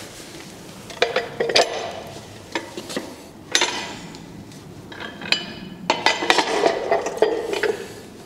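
Steel scissor-lift platform of a portable car lift being tipped over onto its back on a concrete floor: a series of metal clanks and scrapes. The loudest ones come about a second in and at about three and a half seconds, then a busy cluster from about six to eight seconds.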